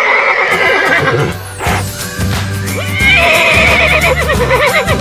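A horse whinnying twice over background music: each whinny is a shaky, quavering call. The first fades out after about a second and a half, and the second starts about three seconds in.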